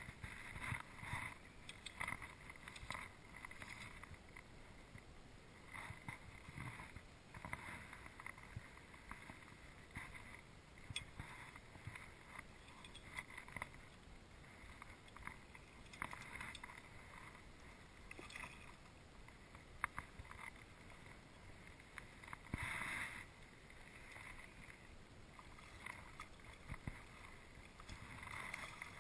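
Small waves lapping and slapping against a small boat's hull in irregular little splashes.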